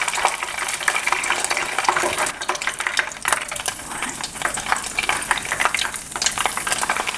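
Oysters frying in hot oil in a pan, sizzling with a dense, steady crackle.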